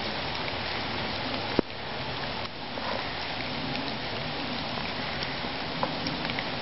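Steady hiss of a snowstorm that sounds like rain, with a sharp click about one and a half seconds in.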